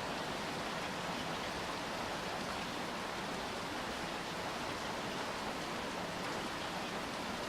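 Steady rainfall, an even wash of noise with no single drops standing out.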